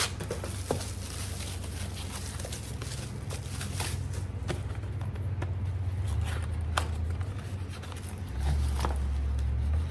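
Handling noise from a package being opened and an item unwrapped: scattered clicks and rustles over a steady low rumble, which swells for the last second or two.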